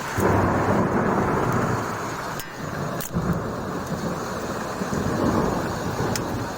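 A roll of thunder breaks in just after the start and rumbles on for several seconds over the steady noise of heavy rain.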